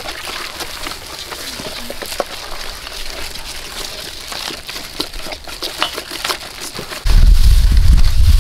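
Wire whisk scraping and clicking against a stainless steel bowl as egg is beaten into flour for a batter. About seven seconds in, a sudden loud low rumble takes over.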